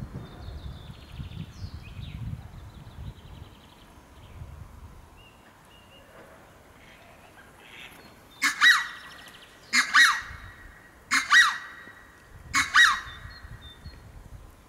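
Indian peafowl (peacock) giving four loud, two-part calls about a second and a half apart, starting a little past the middle. Faint small-bird chirps come earlier.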